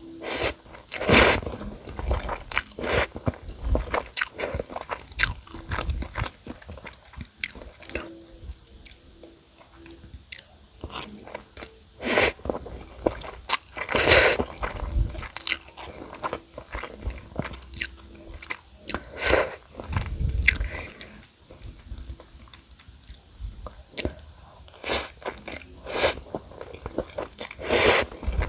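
Close-up crunching of crispy fried chicken: a dozen or so loud crackling bites spread out, with quieter chewing between them.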